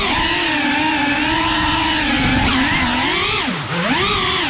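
Brushless motors and ducted propellers of a GEPRC Cinelog cinewhoop drone, whining steadily, the pitch wavering with the throttle. A little past three seconds in, the pitch drops sharply and climbs straight back as the throttle is cut and then raised again.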